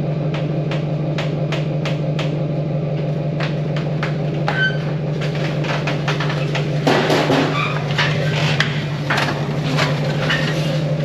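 Lifted Jeep Grand Cherokee rolling backward off a trailer down steel ramps, with repeated knocks and clanks from the ramps and trailer, a louder clatter about seven seconds in, over a steady low mechanical hum.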